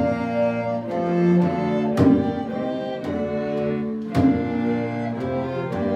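Youth string ensemble of violins, cellos and double bass playing a slow Renaissance pavane in sustained chords. A frame drum strikes about every two seconds.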